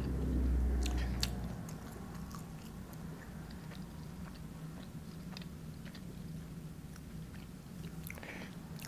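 Close-miked eating sounds: chewing and small mouth clicks. A low rumble in the first second or so is the loudest part.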